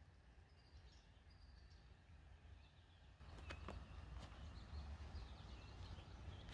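Faint outdoor ambience: small birds chirping over a low wind rumble. About three seconds in, the background grows louder with a steady hiss, a few sharp clicks and more chirping.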